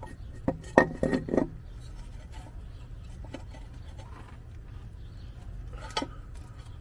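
A few sharp metallic clinks in the first second and a half, then a steady low hum with one more knock near the end, as the upper intake manifold is handled and fitted onto the engine.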